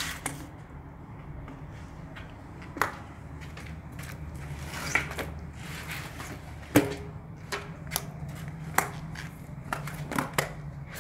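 A yellow rubber garden hose is handled and dragged over tiled stairs while someone walks on them in sandals: scattered sharp taps and knocks, about a dozen, over a steady low hum.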